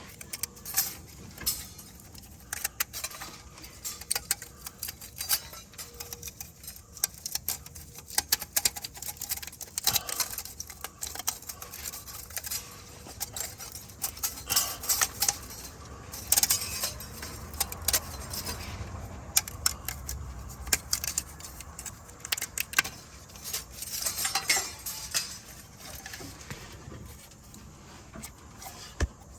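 Irregular metallic clinks and taps, small metal parts and tools being handled and set down.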